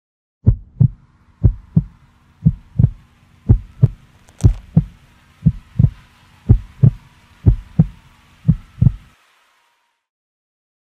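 Heartbeat sound: nine paired lub-dub thumps at about one beat a second over a faint steady hum. The beats stop about nine seconds in.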